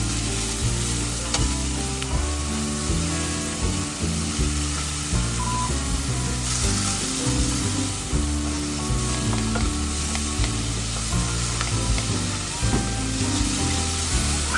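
Food sizzling as it fries in a pan, a steady hiss, over background music with sustained stepping bass notes.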